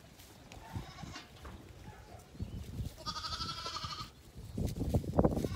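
Zwartbles lambs bleating: a faint short bleat about a second in and a longer, wavering bleat about three seconds in. Low thumps and rustling come in between and are loudest near the end.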